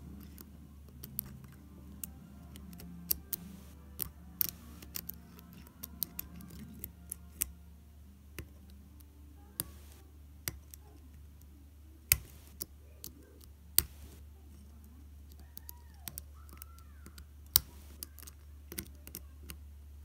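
Lock pick and tension wrench working in the keyway of a brass Abus 83/40 padlock, rocking the pins: irregular sharp metallic clicks and ticks, a few much louder than the rest, over a steady low hum.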